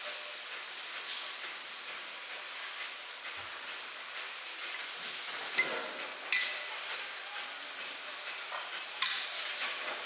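Sharp metallic clinks as a hand punch is struck against an aluminium pot lid resting on a steel stake: single strikes spaced a few seconds apart, then a quick run of several near the end. A steady hiss of workshop noise lies underneath.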